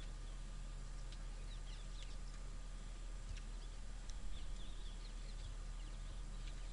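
Small birds chirping in short, scattered calls, busiest in the second half, over a steady low rumble of open-country ambience.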